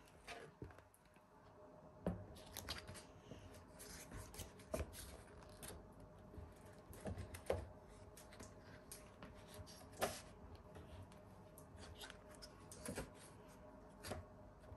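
Faint, irregular clicks and light knocks of small objects being handled, over a faint steady hum; the loudest knock comes about ten seconds in.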